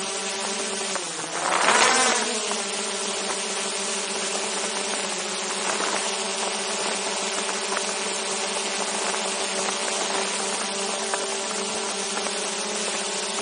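DJI Mavic 2 Zoom quadcopter's four motors and propellers buzzing steadily, heard from a camera hung directly beneath it. About a second in the pitch dips, then briefly swells louder as the motors speed up, before settling back to a steady buzz.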